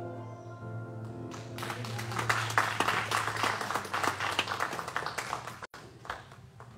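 A children's song ends on a held note, then a small congregation claps for about four seconds before the clapping dies away.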